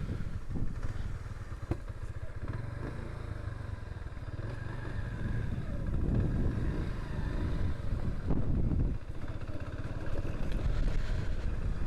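Kansas 150 motorcycle's single-cylinder four-stroke engine running while being ridden, its rumble swelling and easing as the throttle changes.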